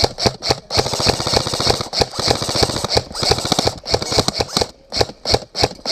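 Airsoft electric guns (AEGs) firing as suppressive fire: a few shots, then a fast full-auto burst lasting about four seconds. After that come single shots in quick succession.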